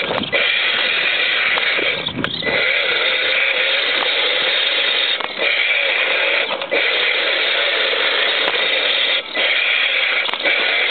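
RC crawler's electric motor and homemade aluminium gearbox whining and grinding steadily under drive, with a wavering motor tone. The sound drops out briefly several times as the throttle eases off.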